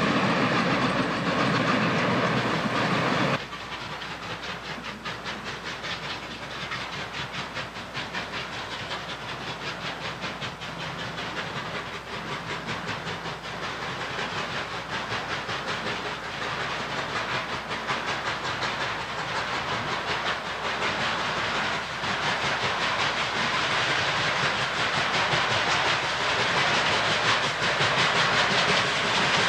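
Passenger cars rolling past on the rails for the first few seconds. Then three steam locomotives (Nickel Plate 587, Norfolk & Western 611 and 1218) work hard as they approach, with rapid exhaust beats and steam hiss growing steadily louder.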